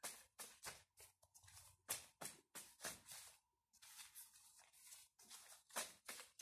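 A deck of tarot cards being shuffled by hand: a quiet run of irregular card flicks and slaps, a few each second.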